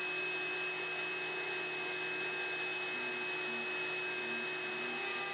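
X-Carve CNC router's spindle running at speed, a steady whine over a hiss, spinning free above the ash panel before the carve begins.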